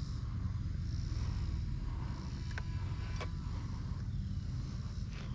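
Wind buffeting the microphone in a low, fluttering rumble, with the faint, wavering whine of a distant electric RC trainer plane's motor and propeller overhead. Two brief clicks near the middle.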